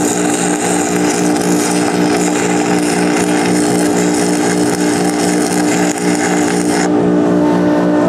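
Stick-welding arc crackling and hissing on a steel I-beam, cutting off abruptly about seven seconds in as the arc is broken. Under it runs the steady hum of a smog hog fume extractor.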